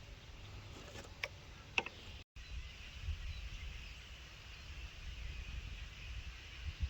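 Outdoor creek-bank ambience dominated by a low, fluttering rumble of wind on the microphone, with a faint high hiss and a few small clicks about a second in. The sound drops out for an instant a little after two seconds in.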